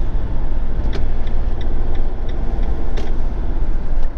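Motorhome on the move, heard from inside the cab: a steady low engine and road rumble with a few faint light ticks.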